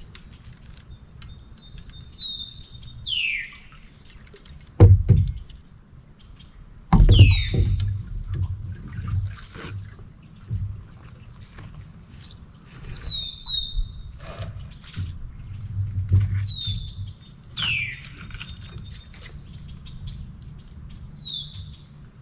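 Birds calling over and over with short notes that fall in pitch, against a faint steady high whine. Two loud low thumps with rumble come about five and seven seconds in.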